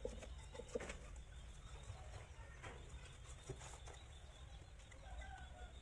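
Faint outdoor background with a steady low rumble and a few soft knocks. Near the end comes a brief, faint bird call.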